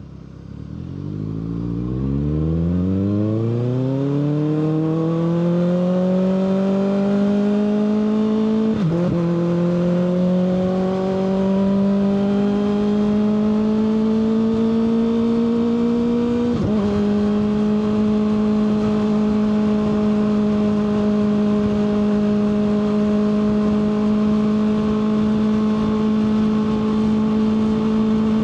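Kawasaki ZX-6R 636 inline-four motorcycle engine pulling away, its pitch climbing steeply for the first few seconds. It shifts up twice, with a short dip in pitch about nine seconds in and again near the middle, then settles into a steady cruise.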